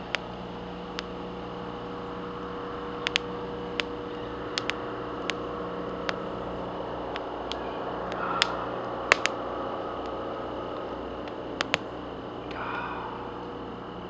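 Small wood campfire crackling, with scattered sharp pops and snaps over a steady low hum. A soft sip of coffee about eight seconds in.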